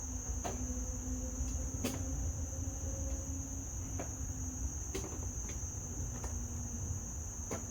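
Steady high-pitched insect trill, like crickets, running without a break, with a few faint clicks and taps scattered through.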